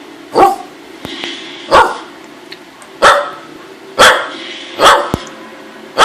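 Dog barking in single, loud barks about a second apart, six in all: demand barking for a treat, here a cough drop.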